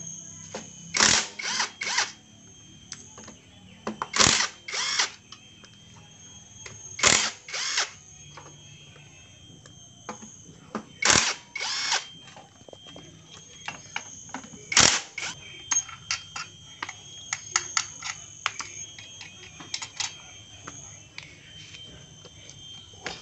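Cordless power driver spinning out the bolts of a Yamaha Vega ZR's clutch cover, in short bursts of two or three every few seconds. Later comes a run of light metallic clicks.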